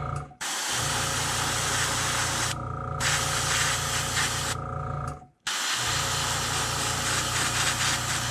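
Airbrush spraying paint: a steady hiss of air that stops and starts in short bursts as the trigger is worked, over the low, steady hum of an air compressor. The sound cuts out completely twice, briefly.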